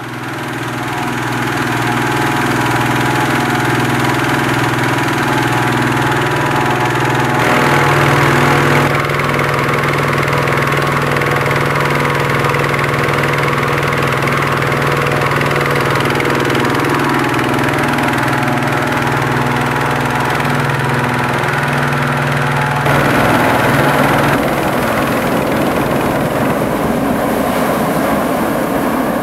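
Small gasoline engine driving a hot-air balloon inflator fan runs steadily, with a slight change in pitch about seven seconds in. About 23 seconds in, the engine sound gives way to the rushing noise of the balloon's propane burner firing to heat the envelope.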